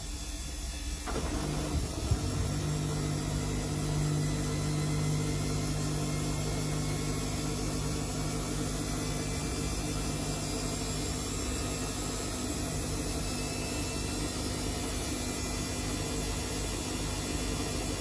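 Samsung front-loading washing machine running with its drum turning: a steady motor hum and whir that picks up about a second in, with a low steady tone that is strongest early and fades away after the middle.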